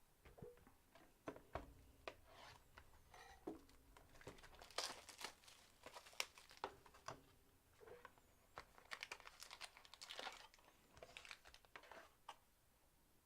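Faint, irregular crinkling and tearing of trading card packaging being opened by hand.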